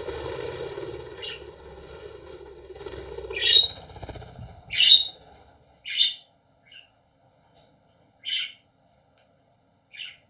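Pet budgerigars giving short sharp chirps, about seven calls spaced a second or two apart, the loudest in the middle. A steady hum runs under the first four seconds, then stops.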